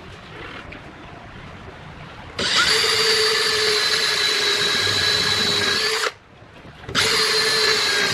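Electric power tool motor running at speed with a steady high whine. It starts about two seconds in, runs for nearly four seconds, stops, then starts again about a second later.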